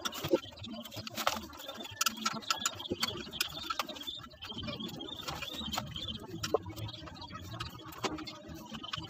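Irregular metallic clicks and clinks of hand tools being worked on a differential housing during an overhaul. Faint birds chirp in the background.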